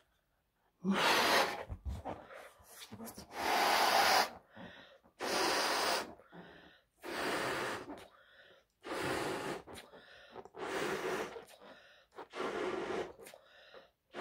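A person blowing up a latex balloon by mouth: about seven long puffs of breath into it, each roughly a second long, with short breaths drawn in between.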